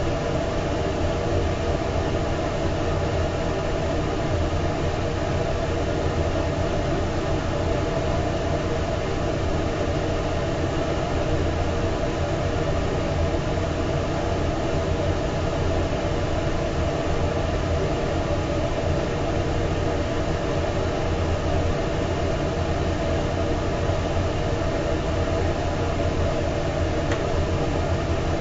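Steady machine drone: a constant low hum with a higher steady whine over a noisy rush, unchanging and unbroken.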